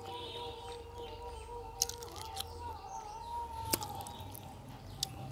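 Eating by hand: a few sharp mouth clicks and smacks as curry and rice are mixed on a steel plate and eaten with the fingers, over faint bird chirps in the background.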